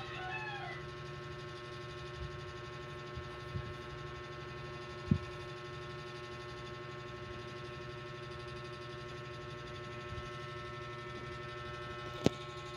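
A steady electrical-sounding hum made of several constant tones. A few faint taps break it, then two sharp clicks: one about five seconds in, and the other near the end as the phone is jostled.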